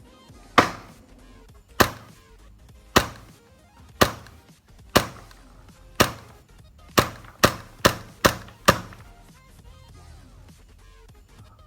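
WE Glock 17 gas blowback airsoft pistol firing eleven single shots, each a sharp crack with a short ringing tail: six about a second apart, then five in quicker succession about twice a second.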